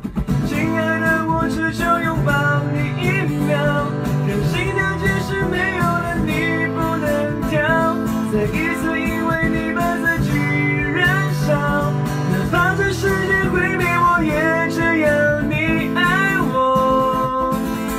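A man singing with an acoustic guitar strummed as accompaniment.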